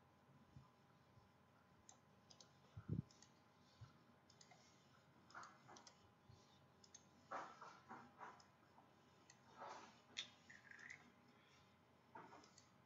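Faint, irregular clicks from a computer mouse and keyboard, a few single clicks and several short runs of clicks.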